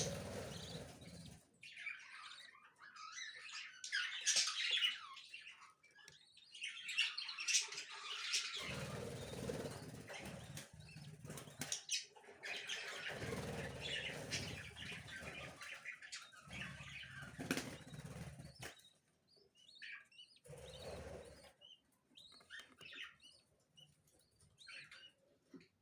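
Small caged pet parrots fluttering and rustling in short irregular spells, with scattered high chirps; near the end mostly faint chirps remain.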